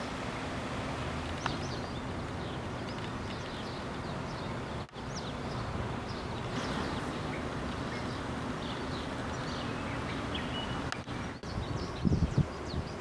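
Outdoor garden ambience: scattered short bird chirps over a steady background hum. The sound briefly drops out about five seconds in, and a few low thumps come near the end.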